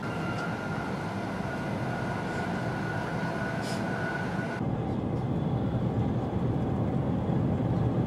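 Taiwan High Speed Rail 700T shinkansen train running and accelerating, heard from inside: steady running noise with a thin whine that rises slowly in pitch. A little past halfway the whine stops and the sound turns to a duller, lower rumble.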